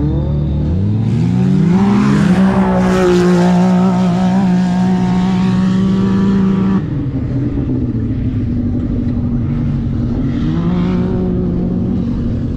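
Side-by-side UTV engines revving: the note climbs over a couple of seconds and is held high, then drops suddenly to a lower, steadier note about seven seconds in, and climbs again briefly near the end.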